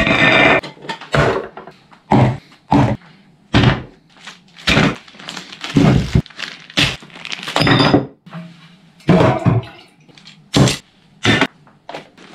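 An irregular series of loud thuds and knocks, roughly one every second, some short and some dragging on for about half a second.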